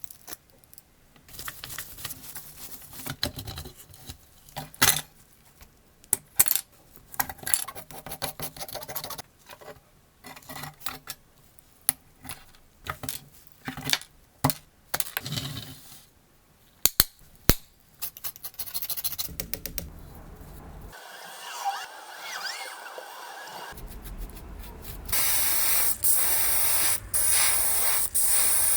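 Hand work on small parts: scattered clicks, clinks and scrapes with short pauses. About 25 seconds in, a louder, steady hiss starts, like an aerosol spray can spraying.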